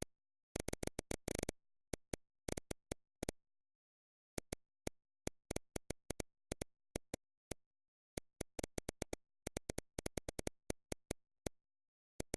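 Sharp, irregular clicks, some bunched several to a second, with dead silence between them, as from input tapping during digital drawing.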